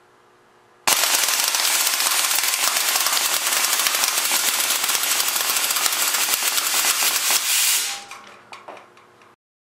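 Homemade .177 BB air cannon firing full auto on 450 psi high-pressure air: about a second in, a loud, rapid, unbroken stream of shots begins, with the steel BBs striking an aluminium pop can and the backboard. It runs for about seven seconds, then tapers off to a few scattered shots.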